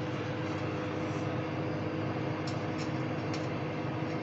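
Microwave oven running, a steady electrical hum with a few faint ticks partway through, as it heats a ready meal.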